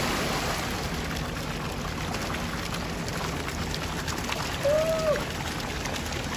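Pool water splashing as a swimmer surfaces and swims freestyle, over the steady pour of a fountain jet falling into the pool. A short rising-and-falling tone about five seconds in.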